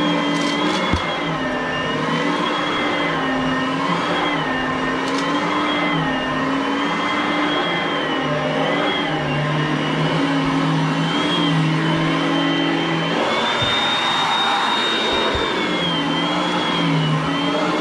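Oreck vacuum cleaner running steadily, its motor hum wavering gently up and down in pitch every second or two, and holding a little higher for a couple of seconds about three-quarters of the way through.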